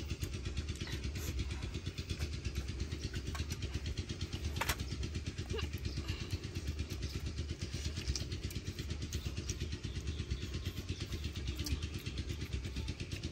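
A small engine running steadily, with a fast, regular low pulse and no change in speed. One sharp click comes a little under five seconds in.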